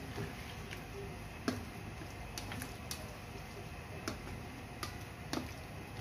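Plastic spatula stirring a thick coconut-milk curry in a stainless steel wok, giving soft scraping and several irregular light clicks against the pan's side.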